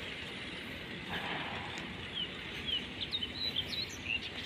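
Small birds chirping: a run of short, quick chirps, most of them in the second half, over steady outdoor background noise.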